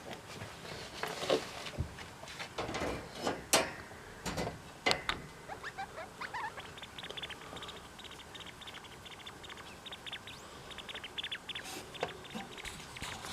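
Degu sneezing: several short, sharp sneezes in the first five seconds, followed by a run of fast, light ticking sounds.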